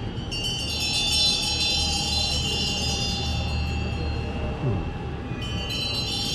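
Small ritual hand bells ringing steadily, a cluster of high metallic tones that drops away briefly about five seconds in and resumes, over a low steady hum.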